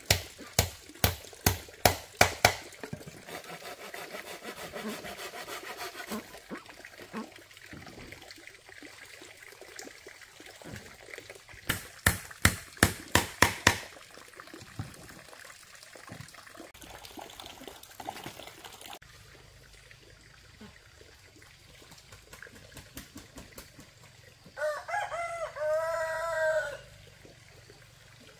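Two runs of sharp, evenly spaced knocks, a few a second, one at the start and one about twelve seconds in, with quieter scattered knocks between. Near the end a rooster crows once, for about two seconds.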